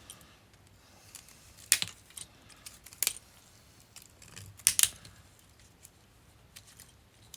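Sharp clicks and small rattles of a motorcycle wiring harness and its plastic covering being handled. A few loud clicks stand out about two, three and five seconds in.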